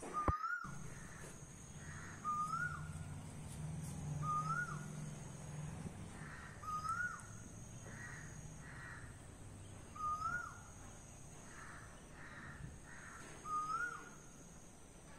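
A bird repeating one short whistled note that rises slightly and then drops sharply, about every two seconds, with fainter, rougher calls in between.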